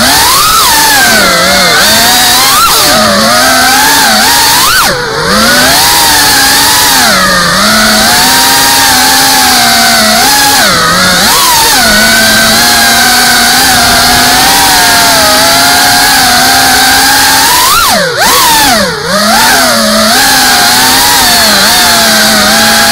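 FPV racing quadcopter's electric motors whining as it flies, the pitch swooping up and down with the throttle. There are short dips where the throttle is chopped, about five seconds in and twice near the end.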